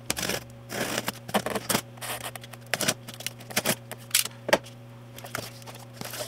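Box cutter slicing through the packing tape and cardboard of a shipping box in a run of short, sharp scraping strokes, with the cardboard flap being pulled open near the end.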